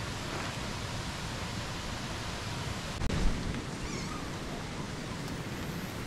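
Steady hiss of rain falling in the open, with wind on the microphone. A brief low thump comes about halfway through.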